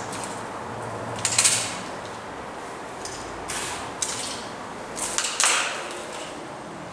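Steady hum of road traffic, with a few short scuffs and rustles close to the microphone, the loudest about a second in and again around five seconds.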